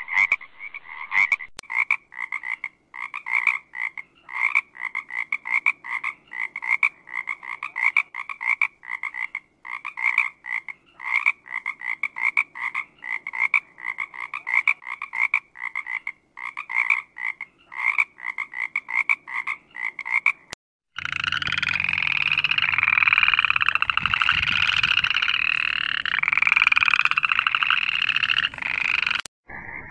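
Frogs croaking. Short croaks repeat in quick series for about twenty seconds, then there is a sudden cut to a louder, dense chorus of many frogs calling together. Near the end it cuts back to the repeated croaks.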